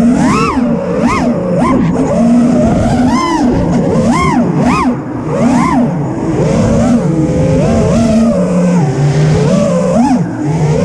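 Onboard sound of a 5-inch FPV freestyle quadcopter: four brushless motors (Ethix Mr Steele Stout 2306, 1750KV, on 6S) spinning tri-blade props. Their whine swoops sharply up and down with repeated throttle punches and chops, then runs lower and steadier near the end.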